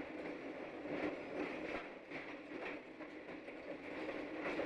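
Faint, steady running sound of a rail car rolling along the track, with occasional light wheel clicks.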